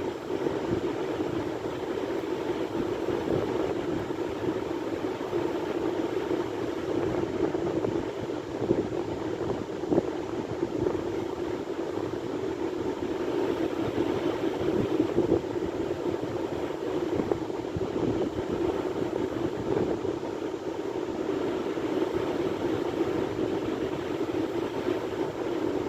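Sea surf: a continuous rush of waves with no clear pauses between them.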